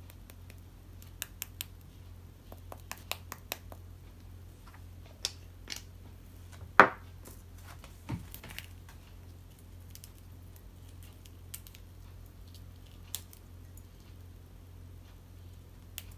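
Small clicks and taps of a spice jar being handled, with one sharp knock about seven seconds in as the jar is set down on a wooden table. Faint crackles of a dried red chili being broken up by fingers follow.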